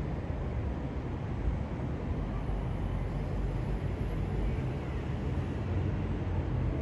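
Steady low rumble of a Boeing 777-200ER's jet engines passing overhead.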